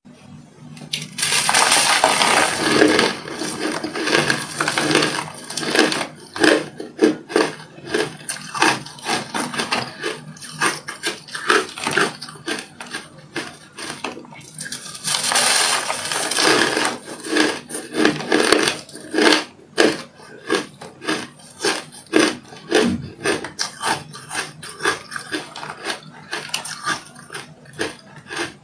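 Soft freezer frost being bitten and chewed close up, a fast crunching. There are two longer stretches of dense crunching, starting about a second in and about fifteen seconds in, with quick separate crunches between.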